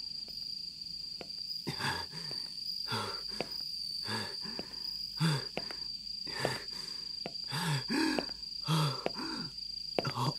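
A man panting hard from climbing steps, each breath a short groan, about one a second, over a steady high trill of crickets.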